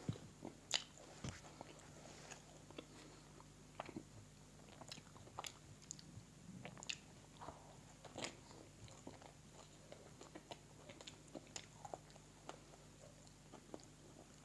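Close-up eating sounds: a chapli burger being bitten into and chewed, a series of short soft clicks and crunches, with a few louder bites near the start and again about halfway through.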